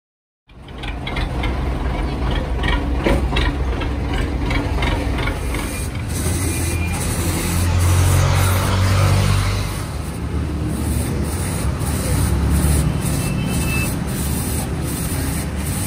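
Machinery running steadily with a low rumble that swells for a couple of seconds around the middle, with scattered clicks and knocks on top. It starts abruptly just after the beginning.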